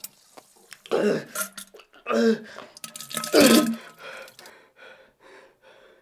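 A man grunting and groaning as he strains on the toilet: three loud vocal efforts about a second apart, then a run of short, fading breaths.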